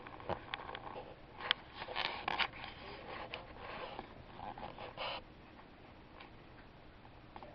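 Cats pawing and nosing at a toy tabletop pool table: scattered light clicks and taps from the balls and wooden rails, with rubbing and scraping, and one short sniff about five seconds in.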